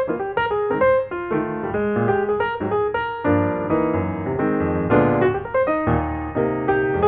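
Background music: a piano tune of quick, evenly paced notes over a lower accompaniment.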